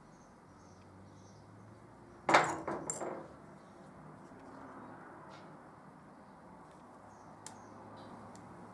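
A brief clatter of small hard objects being handled or set down: a few sharp knocks over about a second, starting about two seconds in, against quiet room tone with a couple of faint ticks later.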